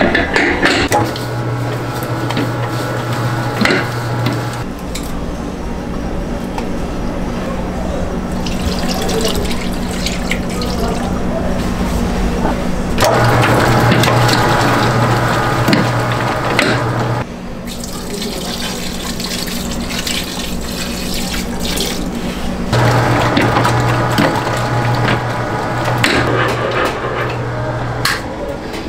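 A commercial planetary stand mixer runs with its flat beater churning a thick cream-cheese mixture in a steel bowl, its motor humming steadily. A louder droning hum with rattle comes in three times, for a few seconds each.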